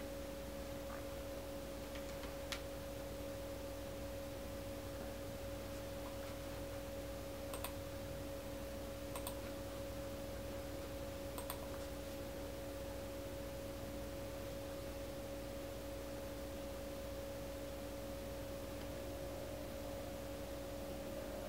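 A steady hum at two pitches, with four short, light clicks scattered through the first half.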